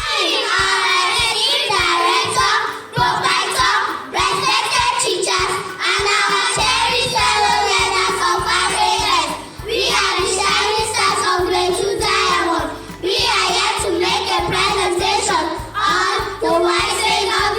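A child singing a song over a music backing track, with a steady bass line joining about six and a half seconds in.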